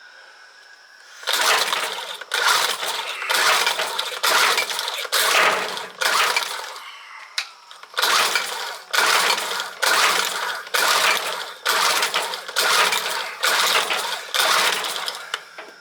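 Two-stroke outboard motor's recoil starter pulled over and over, about a dozen quick pulls in two runs with a short pause near the middle, cranking the engine without it firing: it won't start even though fuel is reaching it.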